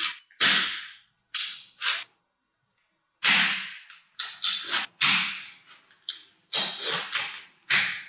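Tiny magnetic balls clicking and snapping together as sheets of them are folded and pressed into a block. About a dozen sharp clacks come at uneven intervals, some in quick clusters, each fading over a fraction of a second.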